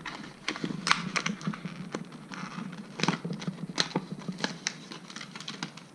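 Stiff plastic blister packaging crinkling and clicking as a Quad Lock universal phone adaptor is pried out of it by hand: a string of irregular sharp clicks and crackles.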